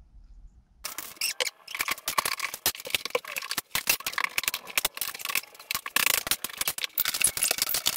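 Wood paneling and trim being pried and torn off a wall: a dense, irregular run of cracks, clicks and scrapes that starts suddenly about a second in.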